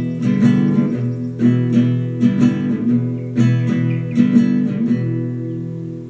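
Acoustic guitar strummed in a steady rhythm of chords, the last chord left ringing and fading out near the end.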